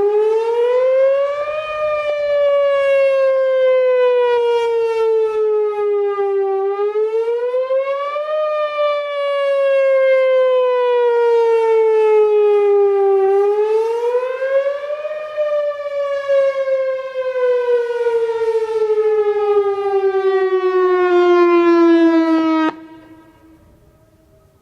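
Outdoor warning siren sounding a loud wail, which the uploader takes for a Whelen Vortex R4. The pitch rises and falls in slow sweeps about every seven seconds, then the tone cuts off suddenly near the end.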